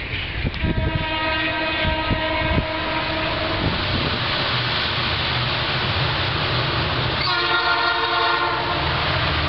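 Diesel freight locomotive air horns sounding twice: one long blast of about three seconds near the start and a shorter blast of about a second near the end, over a steady low rumble of the train.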